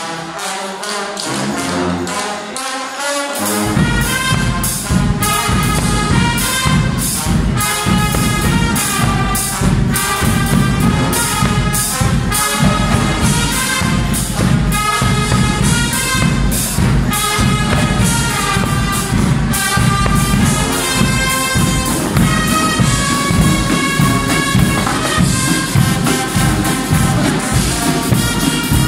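Guggenmusik brass band playing live: a loud massed section of trumpets and trombones over big marching bass drums. The drums come in about three and a half seconds in with a steady, pounding beat.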